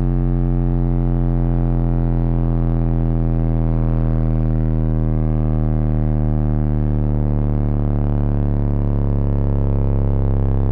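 A 1200-watt RMS 15-inch SPL subwoofer plays a slow sine-sweep test tone from 50 Hz down toward 20 Hz. Its box is ported and tuned to about 36 Hz. The result is a deep, steady, buzzy drone that falls slowly in pitch and grows a little louder near the end.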